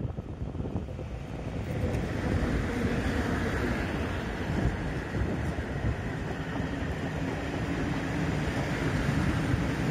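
ET22 electric freight locomotive running past, followed by a long string of open freight wagons rolling by with a steady wheels-on-rails rumble that grows louder about two seconds in.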